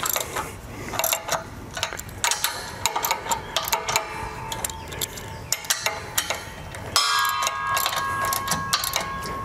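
Socket ratchet wrench clicking in quick runs as the electric trailer jack's three mounting bolts are tightened down onto the camper tongue. A steady high ringing tone comes in about seven seconds in.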